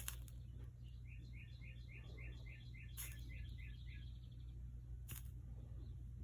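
A bird chirping a quick run of about ten short, evenly spaced notes, over a steady low hum, with a few faint clicks.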